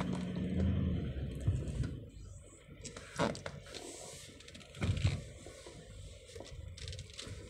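Car cabin noise while driving: low, steady road and engine rumble, with two brief knocks about three and five seconds in.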